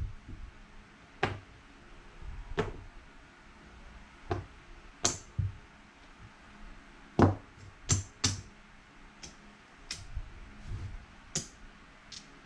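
Casino chips clicking as they are picked up, moved and set down on a craps table. About a dozen separate sharp clicks are spaced irregularly.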